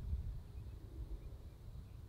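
Wind rumbling on the microphone over the faint, steady sound of a distant light single-engine propeller aircraft running at low power as it rolls along the runway. A few faint bird chirps.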